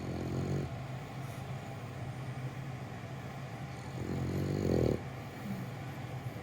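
French bulldog snoring in its sleep: a short snore at the start, then a longer one about four seconds in that grows louder before cutting off, over a steady low hum.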